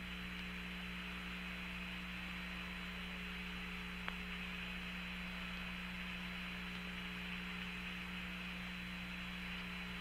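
Open Apollo 14 air-to-ground radio channel with no one talking: a steady hum and hiss, a faint high steady tone, and a single click about four seconds in.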